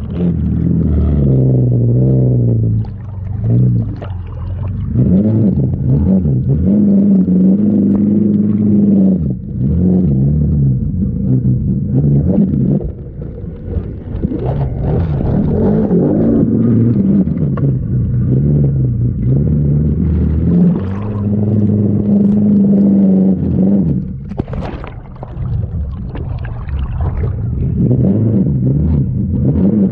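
ATV engine revving up and easing off repeatedly as it drives through a river, with water splashing around it.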